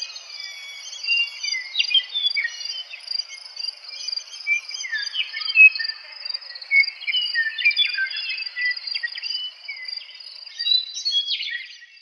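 Meadowlarks singing: short clear whistled notes, many sliding down in pitch, in quick overlapping phrases, over a steady high insect trill like a cricket chorus. A brief harsh chatter comes near the end.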